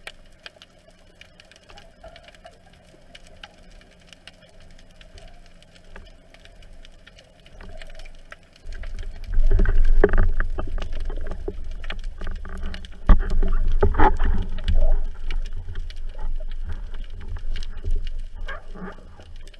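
Underwater sound through a waterproof camera housing: faint scattered clicks at first, then from about nine seconds in a loud, low rumble of churning water with knocks against the housing as the diver moves at the surface and handles the speargun.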